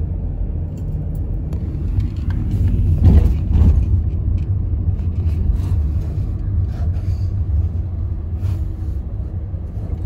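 Steady low rumble of a car driving slowly, heard from inside the cabin, with a few light clicks and a brief louder swell about three seconds in.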